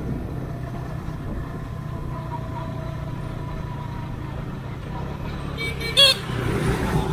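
Steady low rumble of a motorcycle being ridden along a road, with a short, loud vehicle horn beep about six seconds in.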